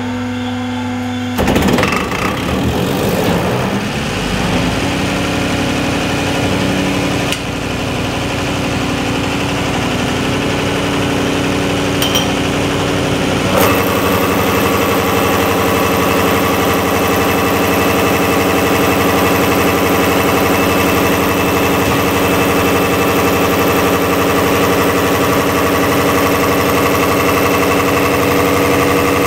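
A diesel fuel injection pump test bench driving a KamAZ high-pressure fuel injection pump, with a steady mechanical hum and whine. The sound changes about a second and a half in and again about 14 seconds in, when it settles into a new steady tone.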